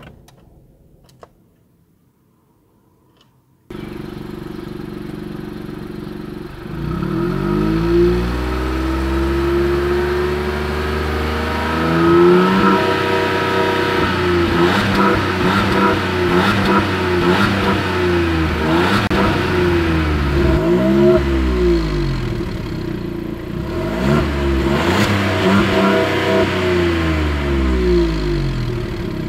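After a few seconds of near silence, the exhaust of a 2018 Skoda Rapid 1.0 TSI (VW EA211 turbocharged three-cylinder petrol) cuts in at idle. The stationary engine is then revved again and again, each rev rising and falling. The car's standstill rev limiter holds the revs down.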